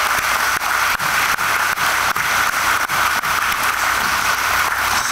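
Audience applauding, many hands clapping in a dense steady patter.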